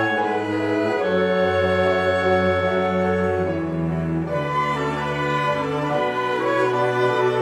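Small chamber ensemble of violins, viola, cellos, flute, clarinets and piano playing a slow worship song arrangement in sustained, legato lines. The cellos carry a bass line that steps to a new note every second or so.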